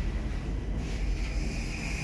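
OTIS Gen2 Life machine-room-less traction elevator car travelling upward, heard from inside the cab: a steady low rumble, with a high whine coming in about a second in.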